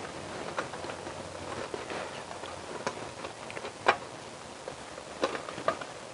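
A 10 mm spanner clicking against a small bolt as the ignition pulse coil mountings are tightened on the engine. The metallic ticks come at irregular intervals, with the sharpest one about four seconds in.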